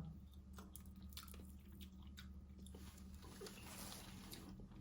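Faint chewing with scattered small clicks from someone eating steamed crab, over a low steady hum.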